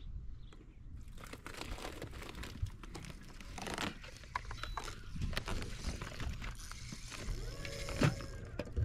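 A fishing reel being cranked to bring in a hooked fish, with crackling, clicking and rustling, starting about a second in.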